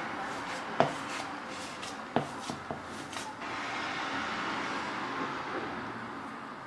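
Hands working a raw mince-and-bulgur köfte mixture in a plastic bowl, pulling off small pieces and rolling them: soft rubbing and squishing, with two light knocks about a second and about two seconds in.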